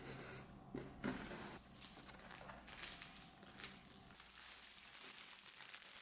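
Faint rustling and crinkling of a cardboard shipping box being opened with a box cutter, the tape slit and the flaps pulled back, then a plastic-wrapped item lifted out. Short sharp scrapes and crackles come every second or so.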